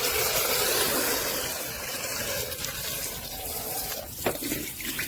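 Water running from a sink tap, rinsing out a stick vacuum's plastic dust container, with a short knock about four seconds in.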